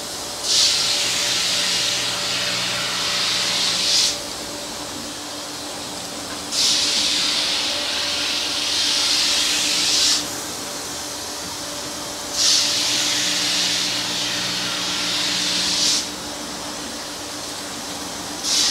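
Montana Crystal Rock ski-grinding machine doing its wet stone pre-grind: a steady machine hum, with a hissing rush of water and stone about every six seconds. Each rush starts sharply and lasts three to four seconds as a grinding pass runs.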